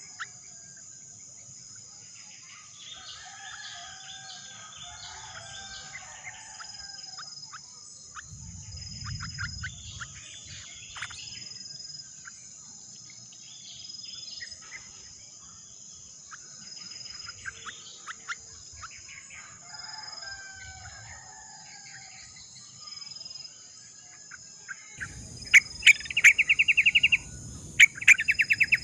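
Yellow-vented bulbuls chirping and calling in scattered short phrases over a steady, high-pitched cricket trill; near the end come several loud runs of rapid chirps.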